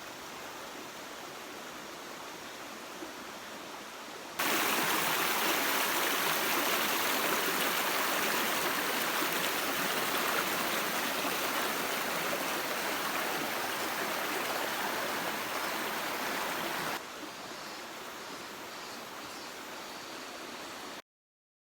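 Steady rush of running water, like a stream. It gets much louder suddenly about four seconds in, drops back to a softer rush about four seconds before the end, then cuts off abruptly just before the end.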